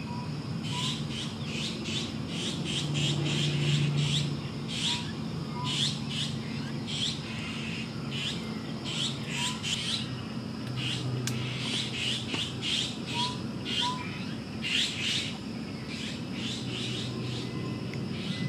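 Birds chirping: quick runs of short, sharp chirps repeated throughout, with a few faint short rising whistles, over a low background hum.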